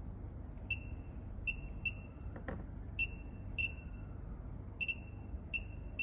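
Short, high electronic beeps from a phone-screen tester board, about nine of them at irregular intervals as the touch screen is tapped, over a steady low hum. A single sharp click about halfway through.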